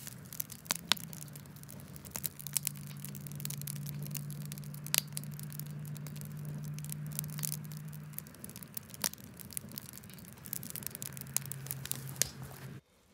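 Fire burning in a steel burn barrel, crackling with scattered sharp pops, over a steady low hum. The sound cuts off abruptly near the end.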